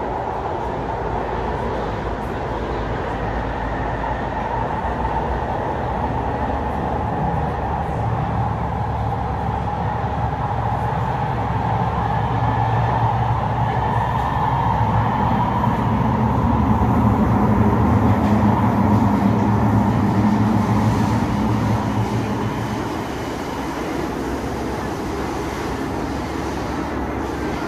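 Metro train running between stations, heard from inside the carriage: a steady rumble of wheels on track that grows louder a little past halfway, then eases back a few seconds before the end.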